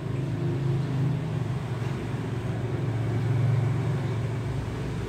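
Steady low background hum or drone with no clear clicks, swelling slightly about three seconds in.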